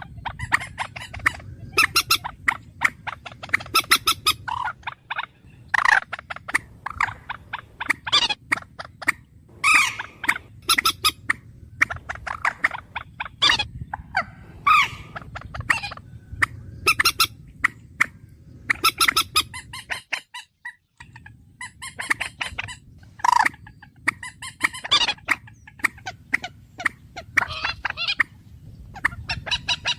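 Bird calls repeated over and over: short, sharp, high calls in quick runs, with a brief silent break about two-thirds of the way through.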